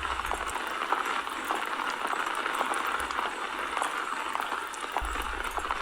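Steady rain falling: an even hiss with small scattered drop ticks.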